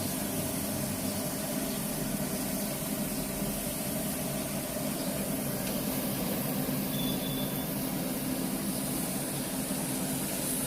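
Wood pellet grill running while hot: a steady hum from its fan, with an even hiss over it.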